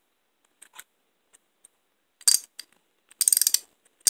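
Astro Pneumatic 3/8-inch wobble-head ratchet being worked by hand, its pawl clicking. A few faint clicks come first, then a loud cluster of clicks about two seconds in, a quick run of ratcheting clicks a second later, and one more click at the very end.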